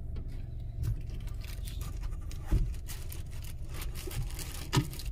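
Steady low rumble of a car's engine and tyres heard inside the cabin while driving, with a couple of short louder sounds about halfway through and near the end.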